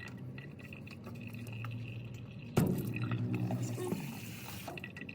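Tap water running and splashing into a stainless-steel grinder bowl as it is washed, with a sudden louder gush about halfway through.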